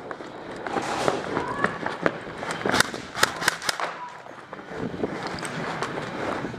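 Airsoft guns firing: a quick string of about half a dozen sharp pops, a little over two and a half seconds in, lasting just over a second.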